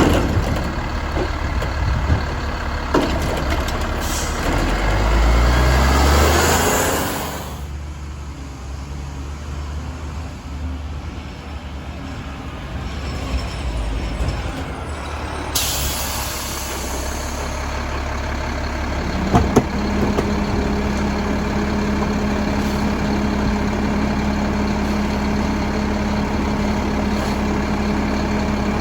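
Mack LEU garbage truck with a Labrie Helping Hand side-loader body: its diesel engine revs up loudly, then eases off. About halfway there is a sharp air-brake hiss, and the engine then settles into a steady idle.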